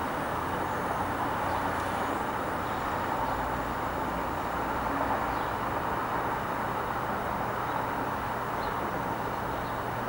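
Steady distant city traffic noise: a continuous, even wash of road traffic with a low steady hum beneath it and no single vehicle or event standing out.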